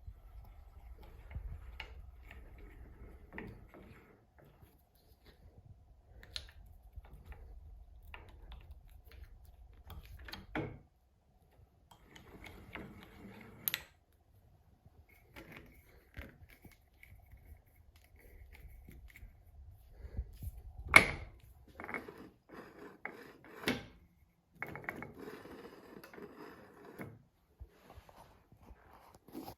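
Metal clicks, knocks and clatter of a drill-mill's controls and parts being handled, over a faint low hum that comes and goes. The sharpest knock comes about two-thirds of the way through.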